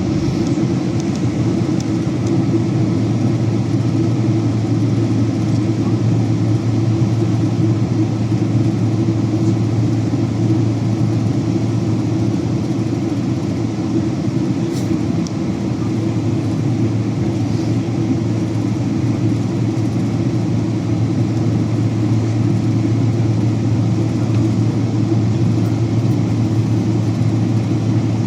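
Steady, deep cabin noise inside an Asiana Airlines Boeing 767-300 airliner, holding an even level throughout.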